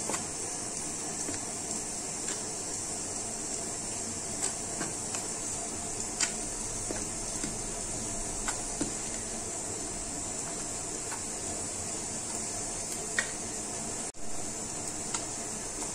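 Steel spoon stirring dry wheat flour and oil in a glass bowl: faint, scattered soft clicks and scrapes over a steady background hiss.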